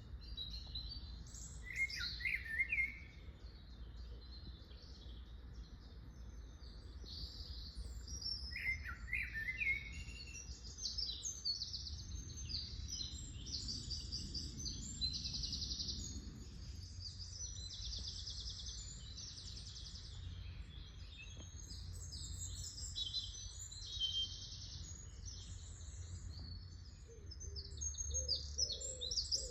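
Spring woodland birdsong: several songbirds singing at once, many overlapping high chirps and trills, with a few lower falling phrases early on and a steady low rumble underneath.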